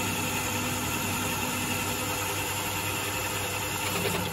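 Myford ML-7 lathe running with its power feed engaged, the tool taking a skimming cut along a spinning metal workpiece: a steady mechanical hum.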